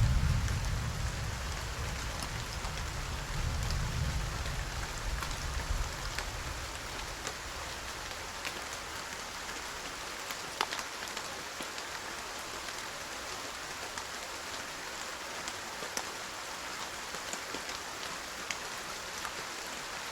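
Steady rain falling, with scattered drops ticking sharply. A low rumble fades out over the first few seconds.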